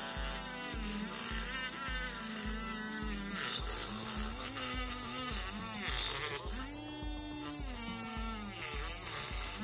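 Small DC motor spinning a mini cutting disc that is being pressed into a plastic sheet. Its whine dips and rises in pitch again and again as the disc bites into the cut.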